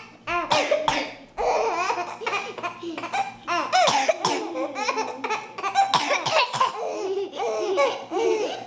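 Four-month-old baby laughing in repeated bursts of giggles, set off by someone's coughs, several of which cut in between the laughs.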